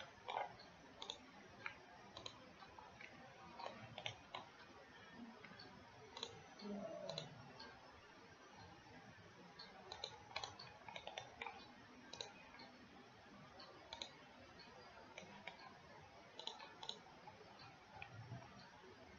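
Faint, irregular computer mouse clicks, a few every second or two, over a steady low hiss.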